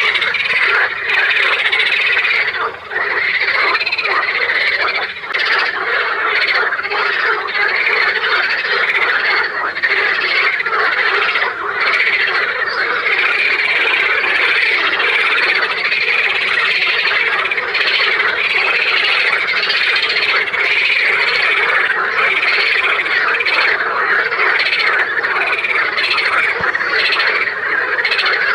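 A chorus of many frogs croaking at once in a dense, steady, unbroken din of overlapping calls.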